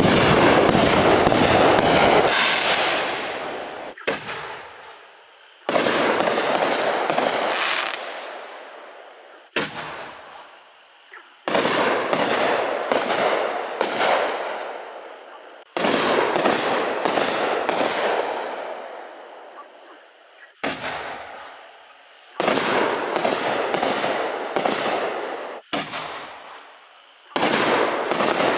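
60-gram canister shell fireworks fired from a mortar tube one after another, about every two to four seconds. Each shot is a cluster of sharp bangs that trails off into a fading hiss.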